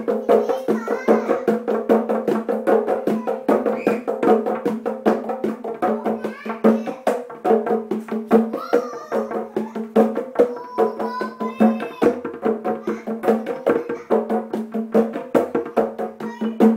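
Hand drumming: fast, dense strikes in a steady rhythm, over a sustained low drone.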